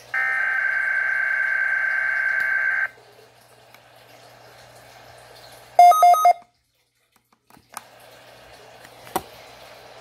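Midland NOAA weather radio: a steady electronic tone for about three seconds, then, about six seconds in, a short loud burst of rapid alert beeps as the radio receives a Required Weekly Test. Faint hiss in between and a single click near the end.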